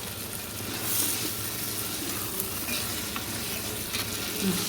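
Biryani masala frying and sizzling in a pot while being stirred, a steady hiss with a brighter surge about a second in.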